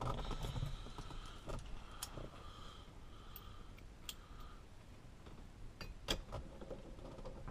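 Small metal clicks and clinks of a washer and nut being fitted onto a car's steering shaft by hand, a few sharp clicks spaced a couple of seconds apart over a faint background hum.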